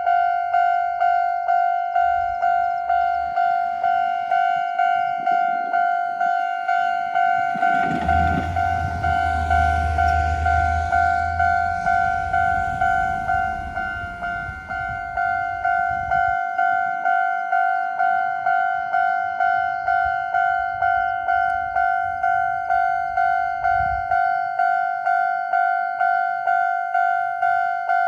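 Japanese level-crossing warning bell ringing in a steady two-tone electronic ding, repeating about twice a second. About eight seconds in, a train passes over the crossing with a low rumble and rattle that fades out by about fourteen seconds.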